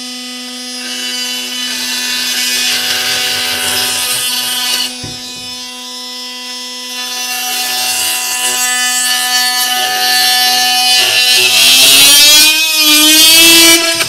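Milwaukee M18 Fuel oscillating multi-tool running with a plunge-cut blade and cutting into a wooden board: a steady buzzing hum with a rasping cutting noise that eases off briefly about five seconds in. Near the end the pitch rises as the tool speeds itself up automatically under the tougher cut.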